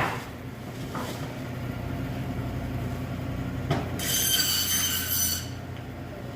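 Chicken being cut: a few knocks on a cutting surface, then about four seconds in a high-pitched squeal lasting about a second and a half, over a steady low machine hum.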